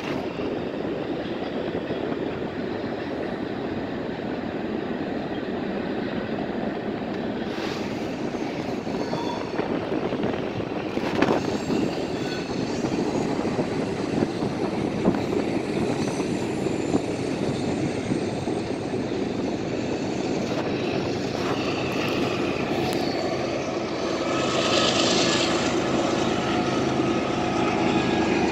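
Steady outdoor rumble of a freight train rolling across a railway trestle, blended with street traffic, with a few sharp clanks in the middle and faint steady tones later on.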